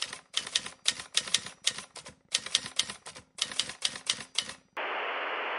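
Rapid clicking in short, irregular clusters, like keys being typed, that stops abruptly near the end and gives way to a steady hiss.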